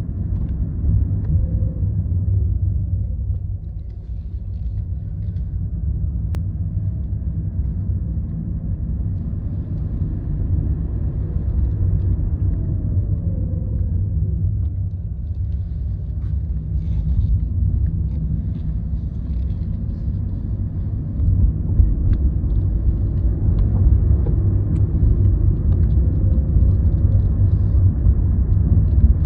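Hyundai Ioniq Electric (38 kWh) on the move: a steady low rumble, with a faint whine that glides in pitch now and then. The owner reports this as a strange sound heard under regenerative braking and uphill acceleration.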